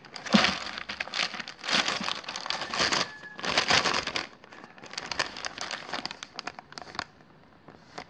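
Silver plastic mailer pouch crinkling as it is handled, in several bouts of rustling with short pauses between.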